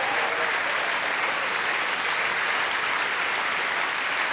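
A large audience applauding, a dense, steady clapping that holds its level throughout.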